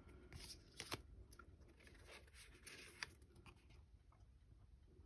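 Faint handling of stiff tarot cards: soft clicks and a light rustle as one card is slid off the front of the stack, the sharpest clicks near the start and about three seconds in.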